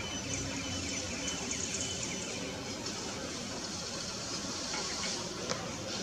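Steady outdoor background hiss with a faint low hum and one short tick about five and a half seconds in. No clear francolin calls stand out.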